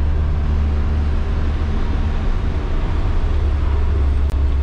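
Converted-bus motorhome driving on the road: a steady, loud low engine drone with road noise. A short sharp click comes near the end.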